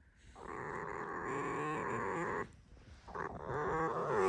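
Pet fox making its creaky, rattling 'creak' call in two long drawn-out bouts, the second starting about three seconds in. It is the fox's protest at being petted, which the owner translates as 'go away, don't touch me'.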